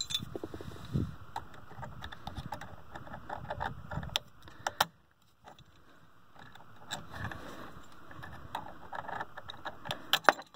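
Handling noise from reconnecting a rubber coolant hose in an engine bay: hands and hose rustling, with scattered light clicks and rattles and a brief quiet gap about five seconds in.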